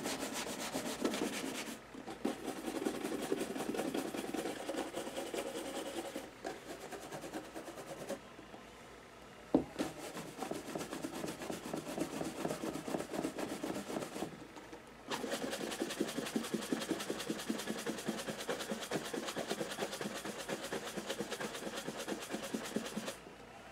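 Horsehair shoe brush buffing dried wax polish on a leather shoe in brisk, rapid strokes, the friction of the bristles on the leather working the wax up to a shine. The brushing stops briefly a few times, the longest pause just before a single sharp knock about ten seconds in.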